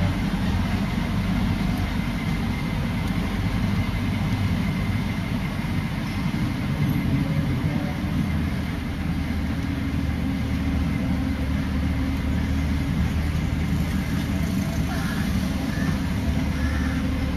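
Steady low engine and road rumble of a moving motor vehicle, heard from on board.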